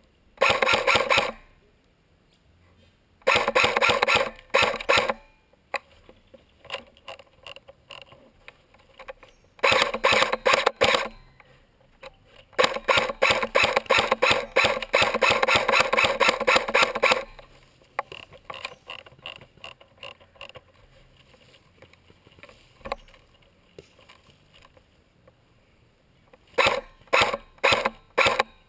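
Airsoft electric guns firing full-auto: several bursts of rapid clicking shots, the longest lasting about five seconds, with scattered single shots or BB hits between them.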